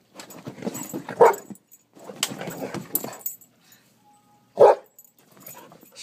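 Dog barking in short bursts during an excited first meeting between a golden retriever and a miniature Australian Shepherd puppy, with two sharp loud barks, about a second in and again past four and a half seconds.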